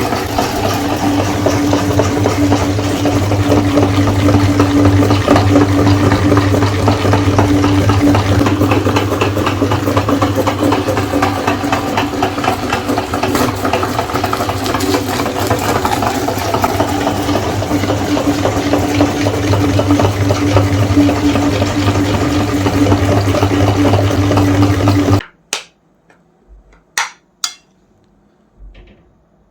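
Electric meat grinder running steadily with a low motor hum and a rough grinding noise as it grinds ice cream bars. It cuts off suddenly near the end, followed by a few light clicks.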